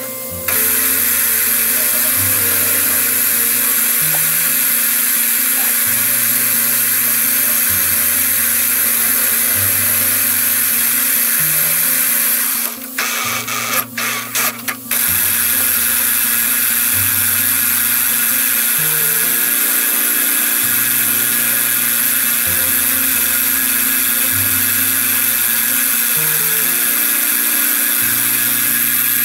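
Milling machine end mill cutting a groove into a 4140 steel pin, a steady high hiss and whine that drops out briefly about halfway through. Background music with a low bassline plays under it.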